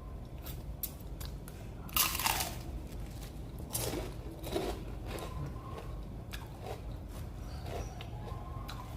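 Close-up crunching and chewing of fried vegetable fritters (bakwan sayur): a loud crunchy bite about two seconds in, then repeated smaller crunches as the crisp fritter is chewed.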